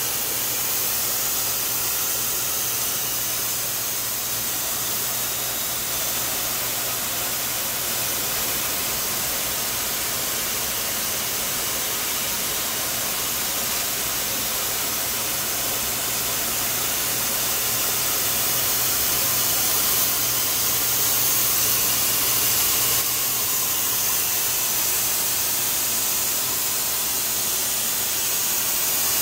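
BCF yarn spinning line running: godet rolls spinning yarn at speed, with a steady loud hiss over a constant low hum.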